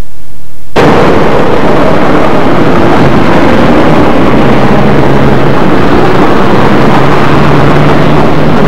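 Faint tape hiss, then, less than a second in, the loud noise of a passenger train passing close by cuts in abruptly. It carries a steady low engine hum.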